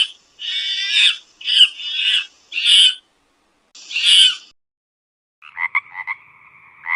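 Animal calls: a run of short, harsh, raspy calls, then about five and a half seconds in a different animal sound starts, a steady two-tone buzz broken by rhythmic pulses.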